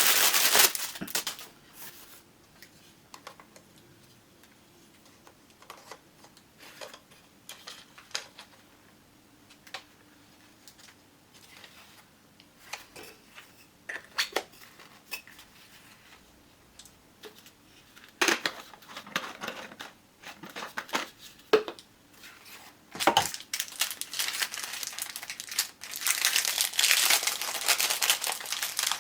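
Packaging being handled during an unboxing: crinkling and tearing with scattered clicks and knocks. There is a burst at the start, quieter handling through the middle, then louder rustling again from about 18 s, and the longest, loudest crinkling near the end.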